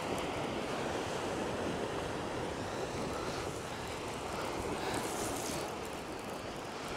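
Small waves breaking and washing up a shingle beach, with wind blowing over the microphone: a steady rushing hiss that swells briefly about five seconds in.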